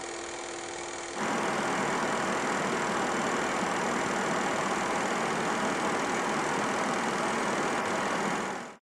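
Film projector sound effect: a steady mechanical whir and clatter that steps up louder about a second in and fades out near the end.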